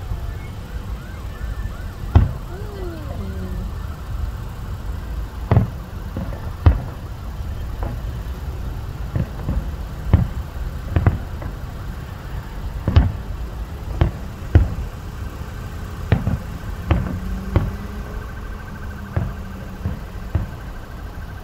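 Fireworks shells bursting in the distance: more than a dozen dull booms at irregular intervals over a steady low rumble.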